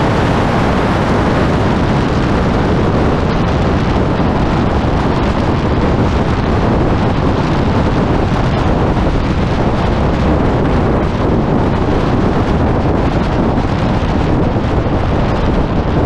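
Loud, steady wind rush over the microphone of a camera mounted on the outside of a car driving at highway speed, with the car's road noise mixed in.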